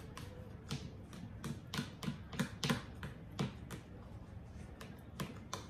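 Eating at a table: a quick run of about a dozen sharp clicks and smacks over roughly three seconds, then two more near the end.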